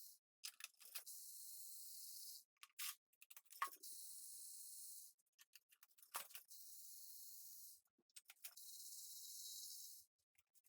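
Near silence: a faint high hiss that comes and goes every second or two, with a few faint, irregular clicks and light knocks.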